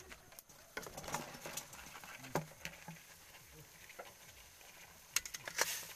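Land snail shells clicking and clattering against a metal wok and against each other as they are tipped in and moved about, with a quick run of louder knocks about five seconds in.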